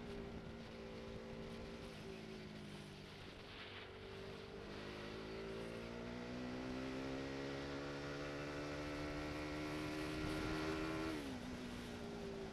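Motorcycle engine heard from the bike over steady wind and road rush. Its pitch eases down at first, then climbs steadily for several seconds as the bike accelerates, and drops sharply near the end.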